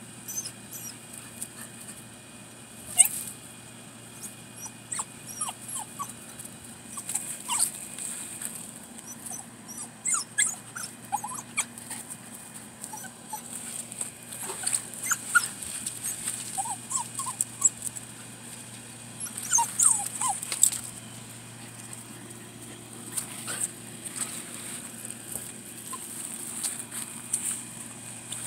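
English cocker spaniel whimpering in short, squeaky whines that come in scattered bunches, with faint rustling and scuffling as it paws at a cat in dry leaves and mulch.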